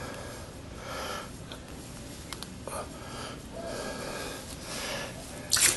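A person breathing close to the microphone in soft puffs, with a short sharp hiss near the end.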